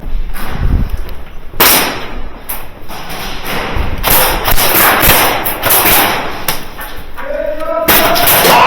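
Thumps, knocks and a rough rushing noise from an airsoft player moving with gear during a game, with a raised voice near the end.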